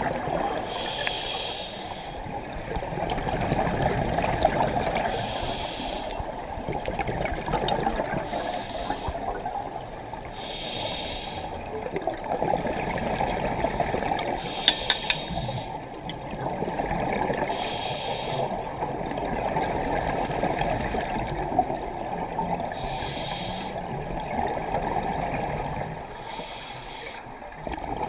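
Scuba diver breathing underwater through a regulator: a short hiss on each breath every few seconds, with steady bubbling and water noise between breaths.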